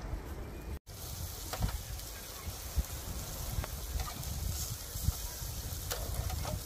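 Meat sizzling on a disposable barbecue grill, with a few short clicks of metal tongs against the wire grate. A low rumble of wind on the microphone runs underneath, and the sound drops out briefly at a cut about a second in.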